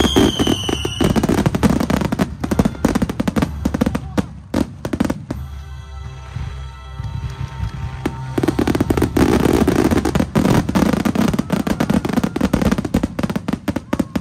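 Aerial fireworks bursting in rapid succession, dense bangs and crackling that grow heavier in the second half, with music playing underneath. Near the start a firework's whistle falls in pitch.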